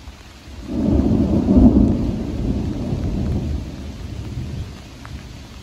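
Thunder following a lightning flash: a low rumble that builds sharply less than a second in, peaks, then rolls on and fades over about three seconds, over a steady background hiss.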